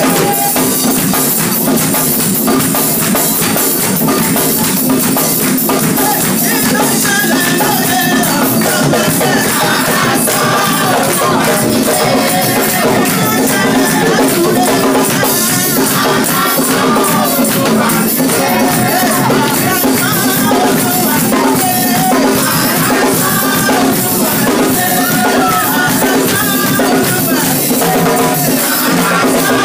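Loud live praise music: a group singing over hand drums, with steady high jingling percussion throughout.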